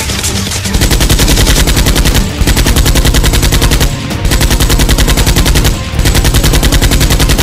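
Automatic gunfire sound effect: rapid machine-gun fire in four bursts of about a second and a half each, separated by brief breaks.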